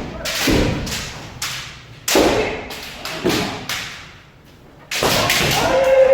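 Kendo practice in an echoing hall: several sharp cracks and thuds of bamboo shinai striking armour and feet stamping on the wooden floor, then near the end a long held shout (kiai).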